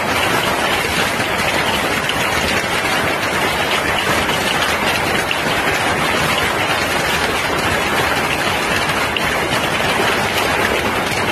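Heavy hail pelting a swimming pool and lawn: a dense, steady clatter and hiss of hailstones striking water and ground.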